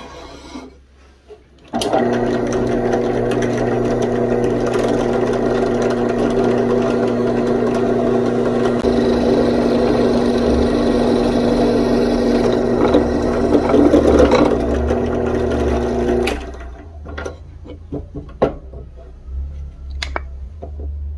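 Bench drill press motor running steadily while the bit bores through a wooden knife-handle scale. It starts about two seconds in and stops well before the end, followed by a few light knocks.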